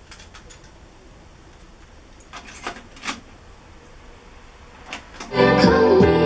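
A few sharp mechanical clicks from a Panasonic cassette deck's controls as the tape is set playing, then music from the cassette starts about five seconds in and is the loudest part.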